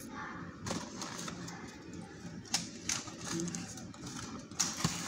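A paperboard fast-food burger box being handled and opened by hand: a few scattered taps and scrapes, then denser rustling of the cardboard and paper from about four and a half seconds in.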